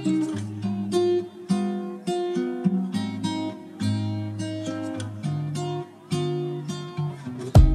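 Background music: acoustic guitar strumming and picking a steady chord progression, with loud sharp beats coming in at the very end.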